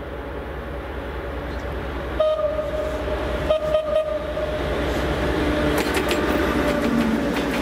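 TEP70BS diesel passenger locomotive approaching and passing under a steady low engine rumble that grows louder; its horn sounds about two seconds in, breaks off briefly and sounds again. From about five seconds in, the wheels click over the rail joints as the locomotive and first coach go by.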